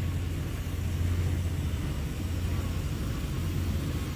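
Steady low engine rumble of a vehicle running, holding an even level without rising or falling.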